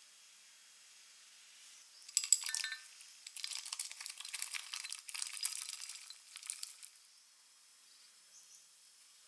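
Chopped chocolate pieces poured from a glass bowl into cream in a glass measuring jug, clinking and rattling against the glass and each other for about five seconds, loudest at the start.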